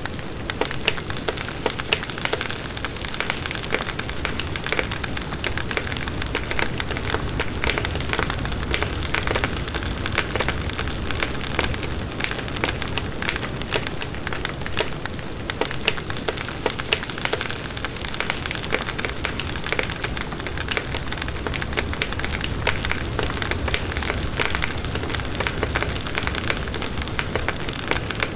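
Wood bonfire burning with a steady hiss and constant crackling and popping.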